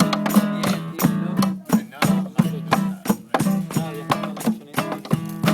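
Recorded music with a strummed guitar and a quick, steady percussive rhythm, playing back from a music player.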